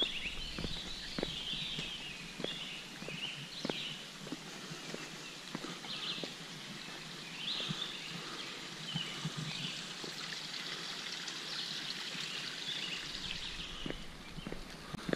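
Woodland birds singing and chirping, over a hiker's footsteps on a paved trail at about two steps a second.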